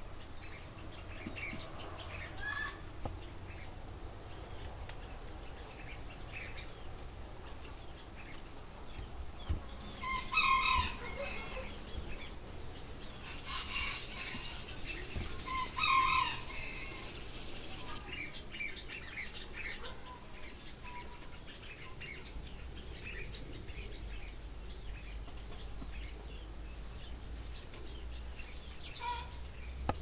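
Mixed small birds chirping and calling around a ground feeding spot, with two louder calls about ten and sixteen seconds in. A steady thin high tone runs underneath.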